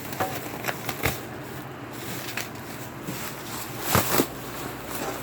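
Cardboard and broken styrofoam packing being handled, rustling and crackling with a few sharp knocks, the loudest about four seconds in.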